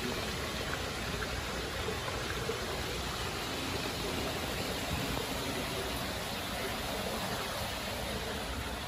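Steady rushing of water churning and circulating in spa pools.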